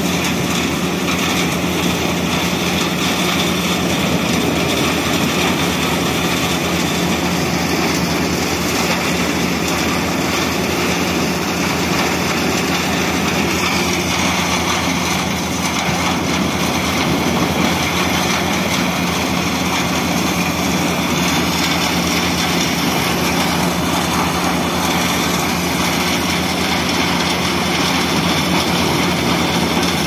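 Trailer-mounted wood chipper running steadily at working speed while it chips branches and blows the chips into a truck body, a constant engine note under an even rushing noise.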